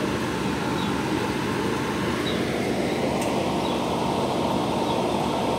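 Steady low mechanical noise, like a machine running, with a faint steady whine above it.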